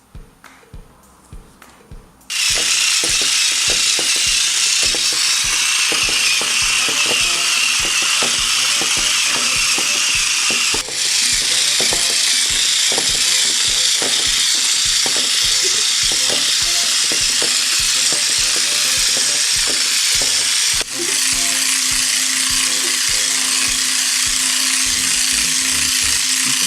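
Battery-powered toy turtle's small geared walking mechanism clicking in a quick ratchet-like rhythm. About two seconds in, a loud steady hiss starts and covers the clicking, dipping briefly twice.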